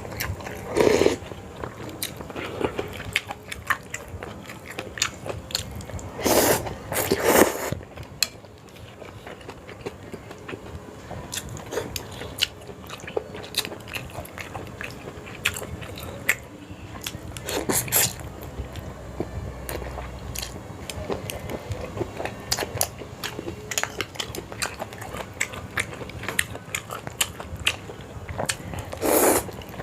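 A person eating Sarawak laksa close to the microphone: steady chewing and biting with many small clicks. A few louder bursts stand out, about a second in, twice around six to seven seconds, near eighteen seconds and near the end.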